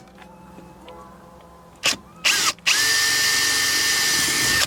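Power drill run in two short bursts, then held at full speed for about two seconds, its motor whine climbing to a steady pitch.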